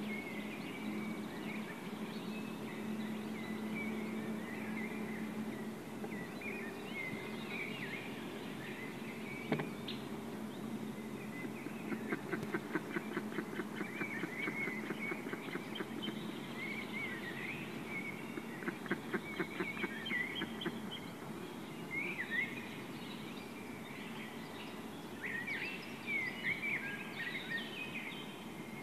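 White-tailed eagle chick calling again and again with thin, high, squeaky calls, breaking twice into fast chittering runs, about twelve seconds in and again near twenty seconds. A single sharp click is heard near ten seconds in.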